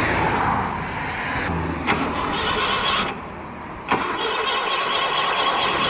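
Air-cooled V4 engine of a ZAZ-968M Zaporozhets being started. The engine sound drops off about three seconds in. After a sharp click a little under a second later it starts again and keeps running steadily.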